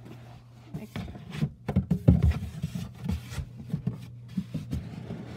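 Handling noise: irregular soft knocks, bumps and rubbing as things are moved about by hand, starting about a second and a half in, over a low steady hum.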